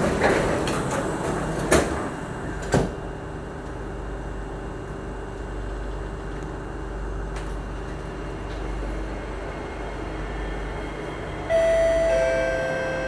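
MRT train doors sliding shut, with two sharp knocks as they close, then the steady low running noise of the train moving off. Near the end a held electronic chime tone sounds from the train's announcement system.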